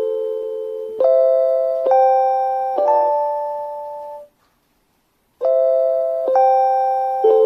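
JR Hokkaido station guide chime for blind passengers, playing a repeating ding-dong run of bell-like notes, a new note about every second, each ringing on and fading. Just past the middle it goes silent for about a second, then the run starts over.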